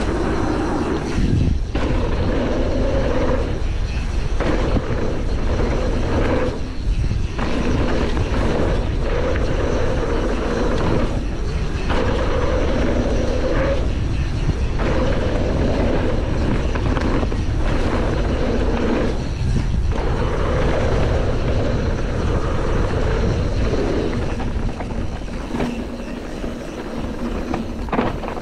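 Canyon Torque CF 9 mountain bike riding downhill at speed on a dirt bike-park trail. The sound is a steady rush of tyres rolling over dirt and wind on the chest-mounted camera's microphone, with short dips every few seconds.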